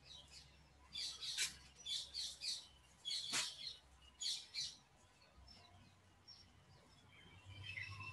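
Birds chirping faintly in the background: runs of short, high chirps over the first five seconds, then a quieter stretch with a few faint chirps near the end, over a low steady hum.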